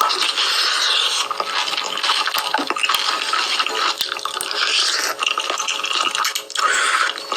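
Close-miked mukbang eating sounds: wet chewing and smacking, with many small moist clicks.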